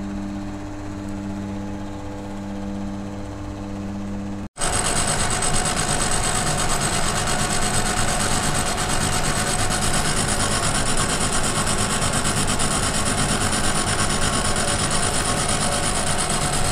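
Metal lathe running with a steady hum that pulses about once a second, turning a welded steel axle tube. After a sudden cut about four and a half seconds in, a milling machine with flood coolant cuts into a bronze bearing bush, a louder steady noise with a high whine.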